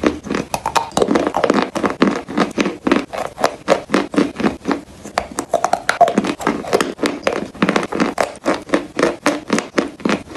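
Close-miked chewing and mouth sounds: wet smacking with a rapid run of sharp clicks, about four or five a second.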